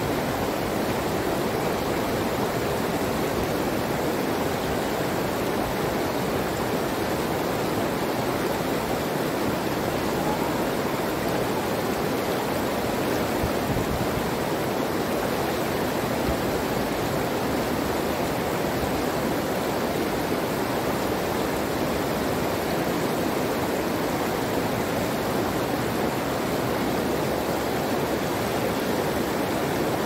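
Steady, unbroken rush of flowing water.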